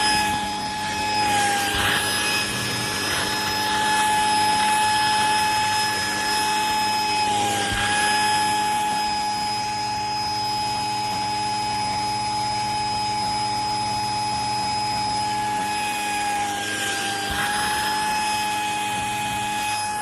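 Deerma EX919 handheld dust mite vacuum cleaner running steadily with a high whine. Its pitch dips briefly three times: about 2 seconds in, about 8 seconds in, and near 17 seconds in.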